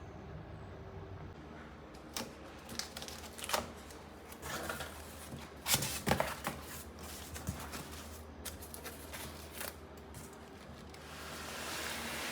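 Handling noises: irregular clicks, taps and short rustles, the loudest cluster a little past the middle, then a longer swell of rustling near the end, over a faint low hum.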